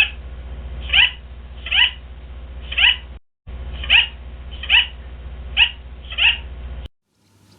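A small animal calling: short high cries, each falling in pitch, repeated about once a second over a low hum. The calls break off for a moment about three seconds in and stop just before the end.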